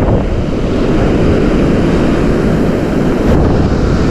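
Steady wind buffeting the microphone over the wash of ocean surf running up the beach around the angler's feet.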